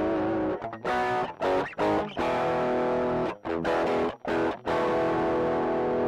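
Overdriven electric guitar played through a pedalboard of effects pedals: chords cut short with sharp stops in a choppy rhythm, then a chord left to ring from about five seconds in.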